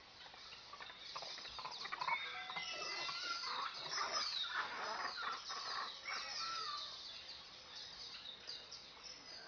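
Many birds chirping and calling at once: a dense chorus of quick, high chirps that sweep downward, busiest in the middle.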